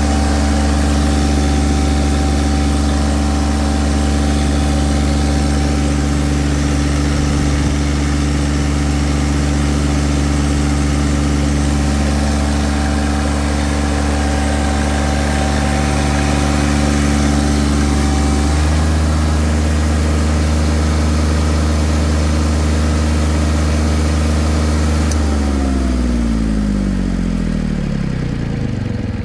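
Yanmar 3T68 three-cylinder diesel generator set running at a steady speed, its note shifting slightly about two-thirds of the way through. About 25 seconds in it is shut off, and its pitch falls steadily as the engine runs down.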